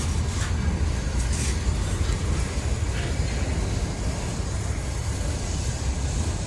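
Freight train's autorack cars rolling past, a steady noise of steel wheels on rail.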